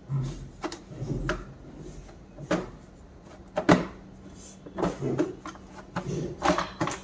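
Hard plastic knocks and clacks from the housing of a Kärcher WD6 Premium wet and dry vacuum cleaner as it is handled, pressed and seated during reassembly: about ten separate knocks, the loudest a little before four seconds in.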